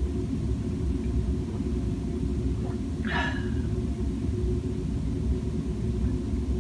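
A steady low background rumble, with one brief, short sound a little after three seconds in.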